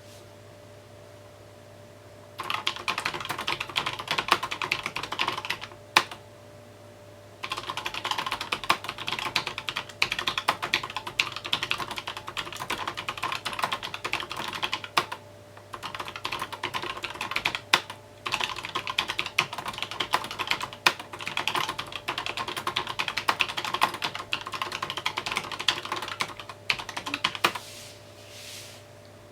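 Fast typing on a mechanical keyboard: quick runs of key clicks that stop for short pauses a few times, with a single keystroke in one of the gaps. A faint steady hum lies underneath.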